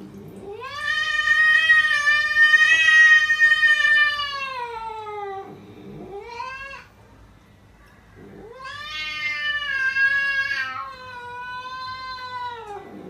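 Cat yowling: a long drawn-out wail of about five seconds that falls away at its end, a short rising call, then another long wail that drops lower and trails off.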